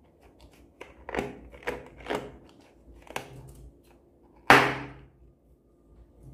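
A few short clicks and crackles of handling, then one loud sharp snap about four and a half seconds in, trailing off briefly, as scissors cut open a taut slime-filled rubber balloon over the bowl.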